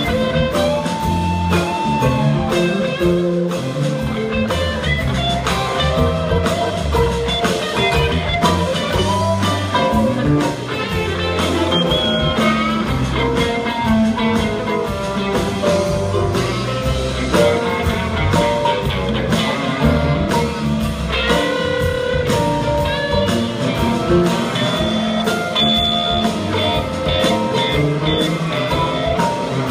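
A live string band playing a song, heard from the audience: electric and acoustic guitars, mandolin, bass and drum kit over a steady beat.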